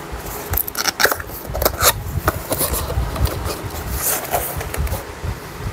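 Handling noise: an irregular run of scrapes, rustles and light knocks as objects are moved about by hand.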